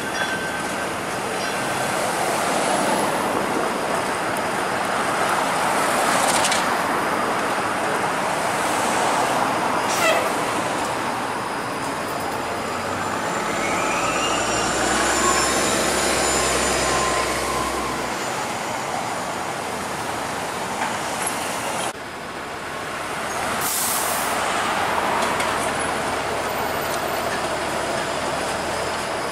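Street traffic made up mostly of TTC transit vehicles: a Bombardier Flexity Outlook streetcar rolling past, then a city bus driving by, its engine running low and steady for a few seconds. After a sudden break, another Flexity Outlook streetcar is heard approaching in the traffic.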